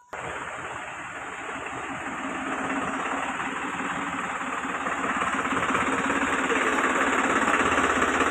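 Tractor engine running steadily, growing gradually louder.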